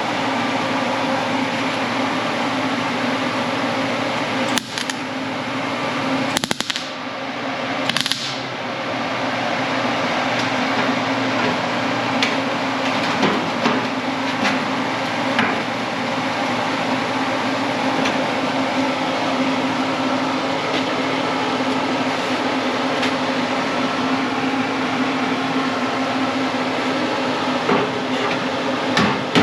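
Electric welder tack-welding a patch panel into a car's steel fender: a steady hiss with a hum and fine crackle, broken briefly by a few sharp clicks about five to eight seconds in.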